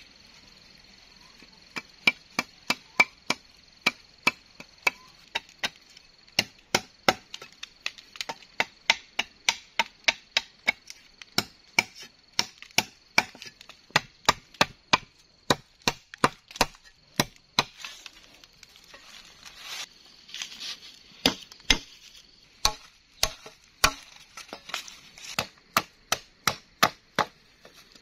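Machete chopping into a wooden pole, cutting a notch: a long run of sharp blade strikes, about two or three a second.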